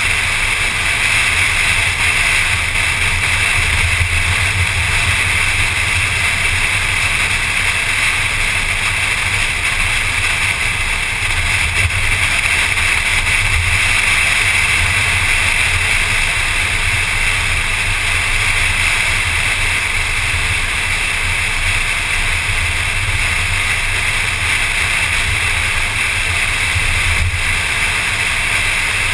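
Steady wind and road noise of a car driving at speed, picked up by a camera mounted outside on the hood: a constant rush with a low rumble underneath.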